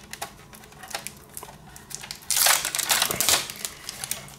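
Protective plastic film being peeled off a router's top panel: a few light handling clicks, then a loud crackle of plastic lasting about a second, starting a little past halfway.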